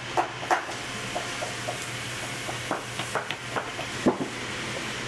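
Irregular sharp clicks and taps of a metal hand tool working the tacks in a leather boot upper, the loudest near the start and about four seconds in, over a steady low hum.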